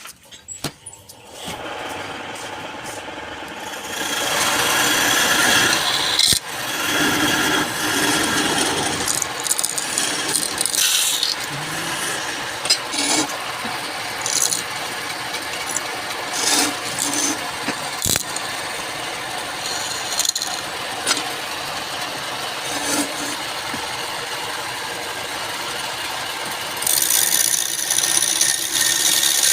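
Wood lathe running, with a turning tool cutting and scraping the spinning wood. The lathe comes up to speed after a few clicks about a second in, the cutting grows louder about four seconds in, and it gets louder again near the end.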